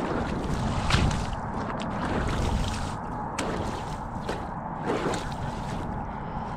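Slushy ice and water sloshing and squishing in an ice-fishing hole, with a few light knocks, over a low rumble of wind on the microphone.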